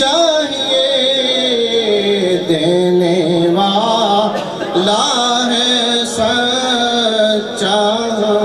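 A man singing a naat (Urdu devotional song praising the Prophet), drawing out long, wavering notes with melodic ornaments.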